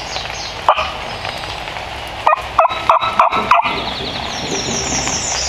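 Turkey gobbling: one short call about a second in, then a longer run of about five quick notes a couple of seconds later. A songbird sings high and faint near the end.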